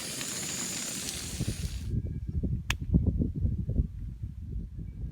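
A steady hiss that cuts off about two seconds in, followed by wind buffeting the microphone in uneven low rumbling gusts, with one sharp click partway through.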